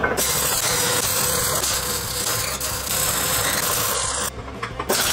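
Electric welding arc crackling and hissing steadily on steel tubing, stopping for about half a second just after four seconds in, then striking again.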